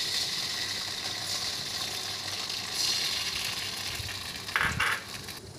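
Blended chilli paste sizzling in hot oil with sliced garlic and shallots in a steel wok, the frying hiss swelling about halfway through and then slowly dying down. Two short louder noises come near the end.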